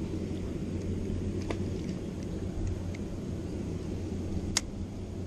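A steady low rumble, with a faint tick about a second and a half in and one sharp click near the end.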